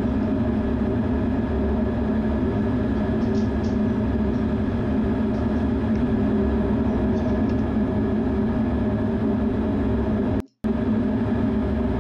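F-16 fighter jet's engine running steadily, heard from inside the cockpit as an even hum with a few fixed tones. The sound cuts out for a split second near the end.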